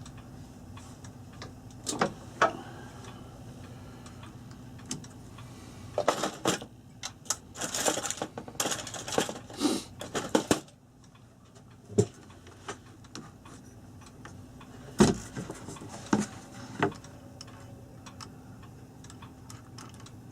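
Irregular clicks and clatter of small clock parts being handled on a workbench, busiest in a run of rustling and clinking between about six and ten seconds in, over a steady low electrical hum that briefly drops out partway through.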